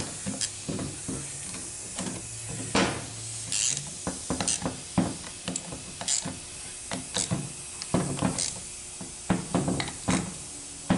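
Hand ratchet wrench clicking in short strokes as the valve body bolts are tightened by hand, with irregular sharp metal clicks and a few quick runs of ratcheting near the end.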